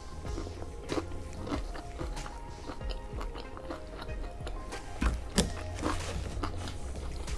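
Close-miked chewing and crunching of food, a mouthful at a time, with two sharp crunches about five seconds in. Soft background music plays under it.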